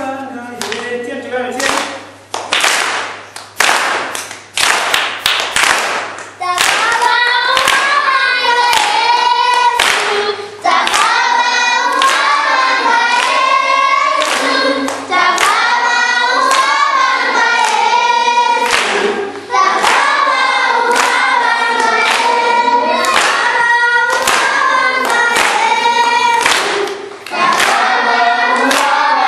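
A children's choir singing with rhythmic hand clapping. For the first six seconds or so the claps lead with only a few voices; then the full choir comes in and sings on over the steady claps.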